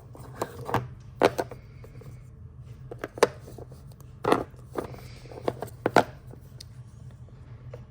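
Resin fidget sliders being set down one after another on a hard surface: a scattered series of sharp clicks and knocks, about nine in all.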